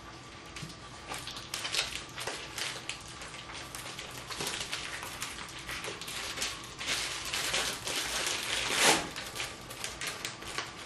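Plastic slow cooker liner bag being handled and crinkled as it is spread into the pot, a busy irregular rustle with a louder crackle near the end.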